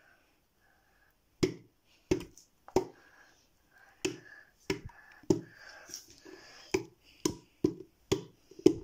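Plastic ketchup squeeze bottle shaken and squeezed upside down over a bowl, a sharp knock about twice a second, with faint spluttering between them. The knocks start about a second and a half in.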